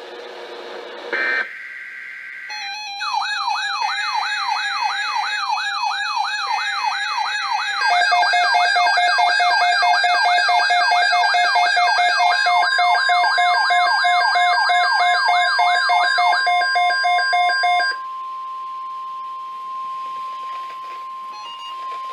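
Emergency Alert System alert audio. Short data bursts come first, overlaid with several fast-wailing electronic siren tones, about three sweeps a second. The sirens stop after about 16 seconds, and a single steady alert tone near 1 kHz, the NOAA Weather Radio warning alarm tone, starts about halfway through and holds for about ten seconds.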